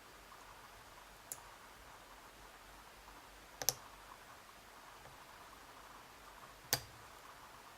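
Small metallic clicks from a lock pick working the pin stack in an Abus E60 padlock's cylinder under light tension: three separate clicks a couple of seconds apart, the second a quick double, the second and third louder than the first.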